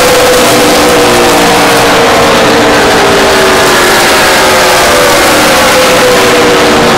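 ARCA stock cars running flat out down the straight, several engines loud at once, their pitch slowly falling as the cars pull away toward the turn.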